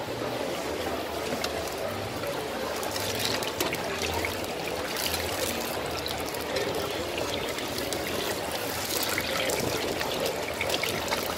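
Teochew meat puffs deep-frying in a wok of hot oil: steady sizzling and bubbling with many small crackles.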